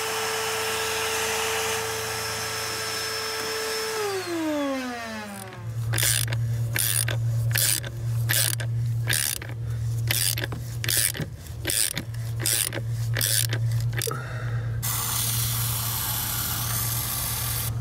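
A small vacuum cleaner runs with a steady whine, then winds down in pitch as it is switched off. Then a ratchet clicks in repeated strokes, turning the nut of an injector puller to draw a carbon-seized diesel injector out of its bore. Near the end an aerosol can sprays with a steady hiss.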